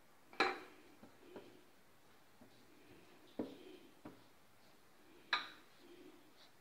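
Five sharp metallic clinks of steel kitchenware, the loudest about half a second in and again near the end. Between them comes soft rubbing as a hand spreads paste over a rolled-out sheet of dough.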